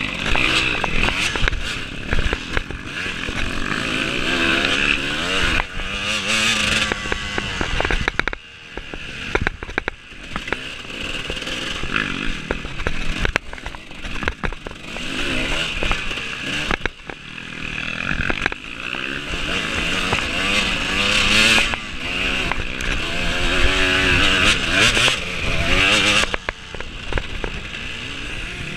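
Off-road racing motorcycle engine running hard, revving up and easing off in repeated surges as it accelerates and shifts, with scattered sharp knocks and clatter.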